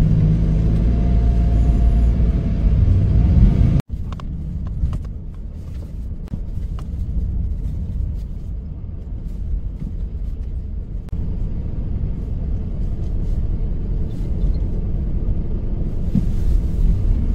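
Steady low road-and-engine rumble heard from inside a moving vehicle while it drives. About four seconds in, the sound cuts out for an instant and then resumes a little quieter.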